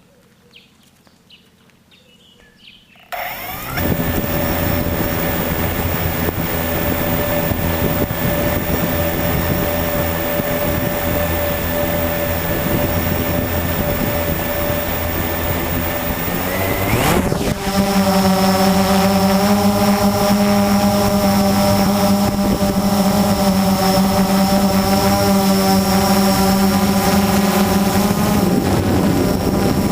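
A Blade 350 QX quadcopter's electric motors and propellers start up about three seconds in after a quiet moment, then run with a steady multi-tone whine. About seventeen seconds in, the pitch glides and the sound gets louder as the quad throttles up, and it holds there.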